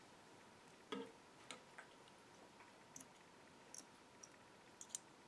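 Small fly-tying scissors snipping stray hackle fibres at the head of a fly: a series of faint, sharp snips and clicks, about eight in all, the loudest about a second in.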